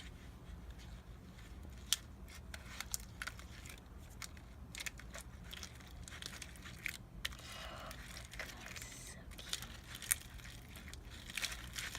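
Clear glue slime being slowly stirred with a plastic slime stick in a mixing bowl just after the activator has gone in, as the slime starts to form: faint scattered clicks and sticky crackles.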